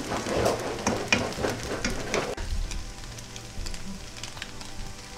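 Spatula scraping and stirring shredded parotta and egg in a nonstick frying pan as the food sizzles. About two seconds in the stirring stops and a quieter, steady sizzle carries on.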